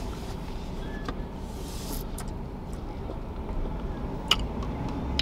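Car idling, heard from inside the cabin: a steady low hum, with a few small clicks and a short hiss about two seconds in.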